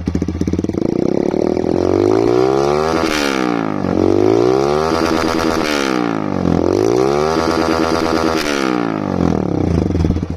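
Motorcycle with a free-flowing full-system exhaust, no catalytic converter and the dB killer removed, revved hard from idle about three times, each rev climbing to a peak and dropping back. The engine sound dies away at the very end.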